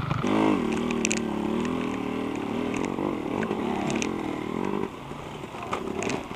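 Dirt bike engine running: the revs fall right at the start, then hold unevenly for a few seconds before dropping away about five seconds in, with a few light knocks.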